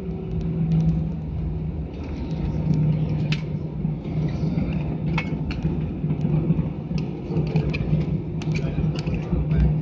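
Cabin noise of an Airbus A320 taxiing after landing: a steady low hum and rumble from the engines at idle, with scattered light clicks and rattles.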